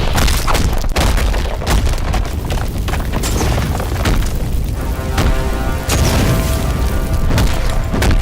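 Dramatic orchestral music with booming low hits and a run of sharp fight impact sound effects; about halfway through, held chords come in under the hits.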